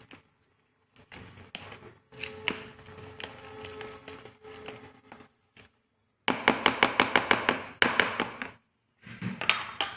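A plastic spatula stirring thick chocolate cake batter with chopped almonds in a plastic bowl, knocking against the bowl. It is faint at first, then from about six seconds in comes a fast run of taps, several a second, and a shorter run near the end.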